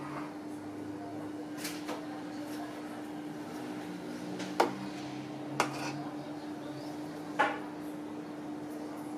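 A ladle clinking against a stainless steel pot and glass dessert cups while a thick strawberry cream mixture is ladled out: two soft taps, then three sharp clinks about a second and then two seconds apart, over a steady low hum.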